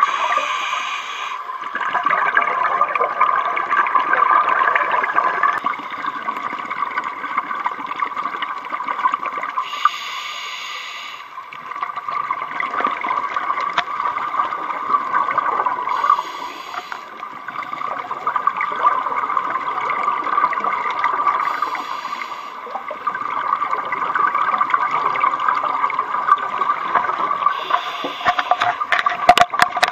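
Scuba regulator breathing heard underwater through a camera housing: a short hiss of inhalation every five or six seconds, with exhaled bubbles gurgling in between, over a steady drone.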